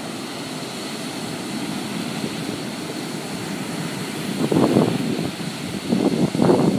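Steady roar of breaking surf. From about four seconds in, irregular gusts of wind buffet the microphone, louder than the surf.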